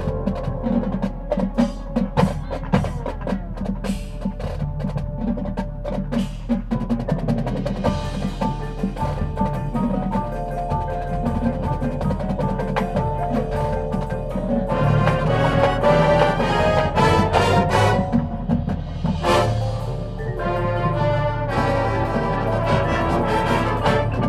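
High school marching band playing, percussion and mallet instruments striking over held chords. About halfway through the full band comes in denser and louder, with one heavy hit a few seconds later.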